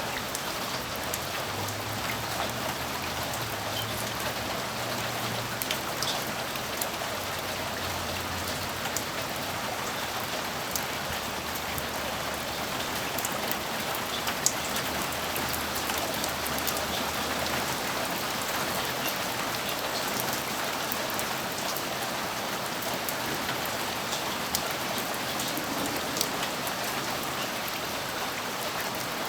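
Steady rainfall, with scattered sharp drop clicks throughout. A faint low rumble of distant thunder rolls under it through the first half and fades out a little past the middle.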